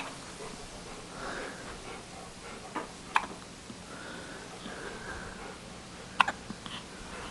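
Baby hiccuping: short, sharp hiccups about three seconds in and again just after six seconds.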